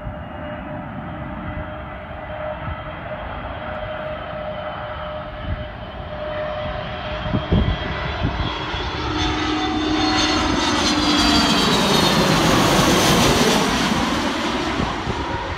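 Jet engines of an Airbus A320-family airliner on final approach, growing louder as it comes in low and loudest as it passes overhead near the end, the engine whine dropping in pitch as it goes over. Gusty crosswind rumbles on the microphone underneath.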